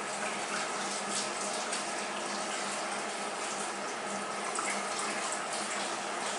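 Reef aquarium's circulating water running and splashing steadily, with a faint steady hum underneath.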